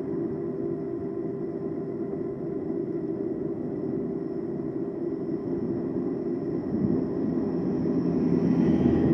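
Steady road and wind rumble of a moving e-bike, with faint steady whining tones over it. From about seven seconds in, an oncoming farm tractor's diesel engine grows louder as it draws near and passes.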